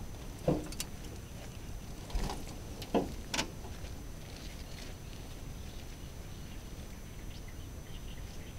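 Steady low outdoor rumble with four brief knocks and rustles in the first few seconds, then only the rumble.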